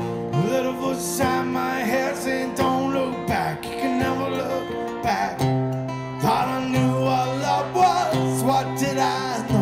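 Acoustic guitar strummed chords, played live through a PA.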